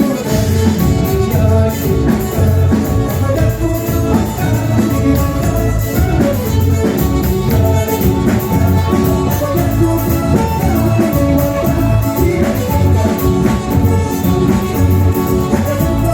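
Music played loud and steady throughout, with a regular beat and several instruments sounding together.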